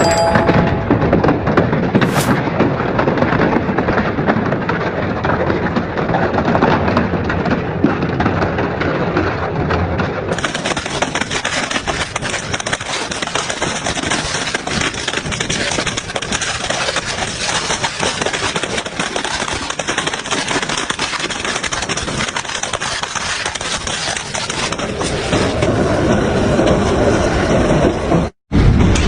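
Industrial double-shaft shredder crushing and tearing material, a loud, dense crackling and grinding. The sound changes abruptly about ten seconds in and again near the end, as if from one shredding clip to the next, and cuts out for a moment just before the end.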